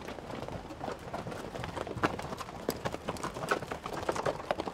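Hooves of several ridden horses clopping at a walk, a quick, irregular run of hoof strikes.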